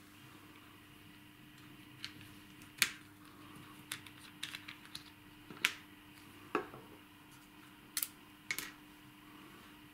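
Small sharp plastic clicks and taps, scattered and irregular, from hands handling a little bottle and a plastic syringe used to fill a model locomotive's smoke generator, over a faint steady hum.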